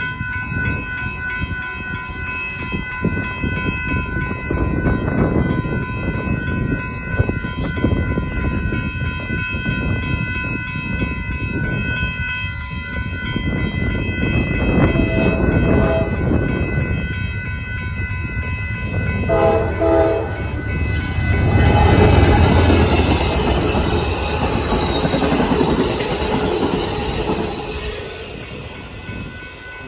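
Northbound Amtrak Texas Eagle passenger train approaching and passing a road crossing. It sounds short horn blasts about halfway and two-thirds through, and its wheels clatter over the rails as the locomotive and cars go by, loudest a little after the second blast. A steady high ringing, the crossing signal's bells, runs underneath.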